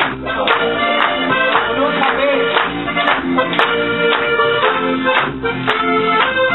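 Live volkstümliche dance music from a small band, with a steady beat about two a second and the audience clapping along.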